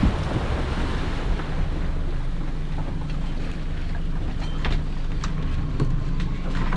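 Small fishing boat under way: its engine running steadily, with wind on the microphone and water rushing past the hull, and a few brief knocks.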